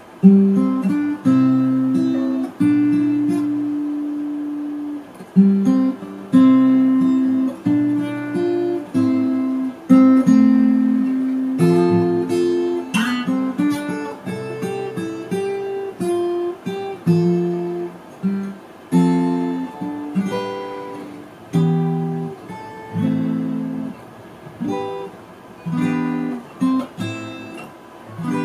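Acoustic guitar strummed in a slow run of chords, each struck and left to ring and fade, played clumsily.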